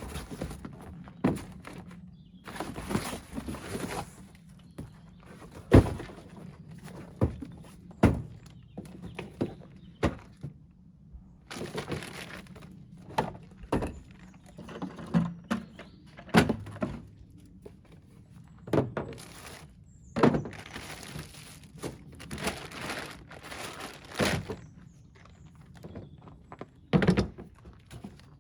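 Irregular thumps and knocks with rustling: boxes and packaging being handled and set down.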